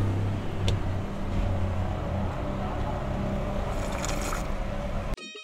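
Steady car cabin noise with the engine running: a low hum with a hiss above it and a faint click under a second in. It cuts off suddenly near the end, where plucked-string music begins.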